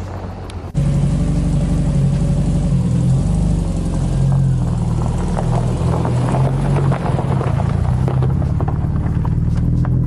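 Car engine and exhaust running with a steady rumble. A louder engine sound cuts in under a second in, its pitch wavering slightly as the car drives.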